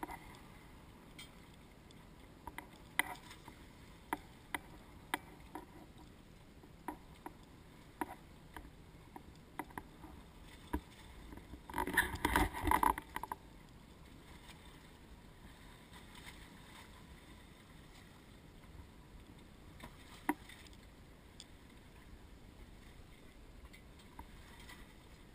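Small fishing boat at sea: faint steady water and hull noise with scattered small knocks and clicks, and one louder burst of noise about twelve seconds in lasting a second or so.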